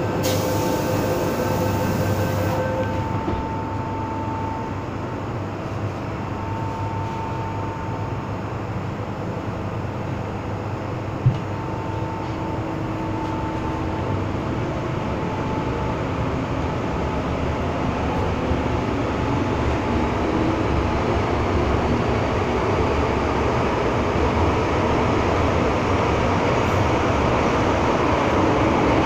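Inside an MTR M-Train carriage running through a tunnel: a steady rumble of the wheels on the rails, with whining tones from the drive that come and go. There is a single sharp knock about eleven seconds in, and the noise slowly grows louder toward the end.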